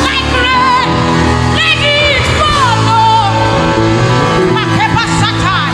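Live gospel worship music: a band playing sustained chords under a solo voice singing with wide vibrato and sliding pitch, without clear words.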